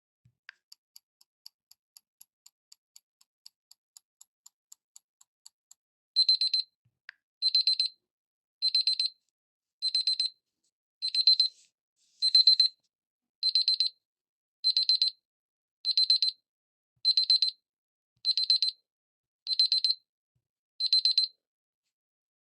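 Huawei Nova Y90 smartphone's alarm tone from the phone's own audio: faint quick ticking, about three a second, for the first few seconds. Then loud high electronic beeping starts, in short bursts about once every 1.2 seconds, thirteen times.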